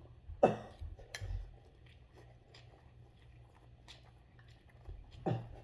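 A person slurping and chewing instant noodles. There is a loud, sharp slurp about half a second in and smaller slurps just after, then faint chewing and mouth clicks, and another slurp near the end.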